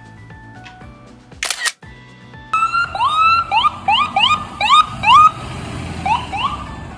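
Electronic siren of a toy police car giving a series of quick rising whoops, starting about two and a half seconds in, over background music. A short burst of noise comes about a second and a half in, before the siren.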